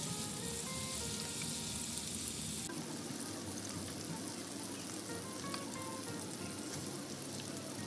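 Grated carrots and onions sizzling as they sauté in oil in a pan, with occasional stirring.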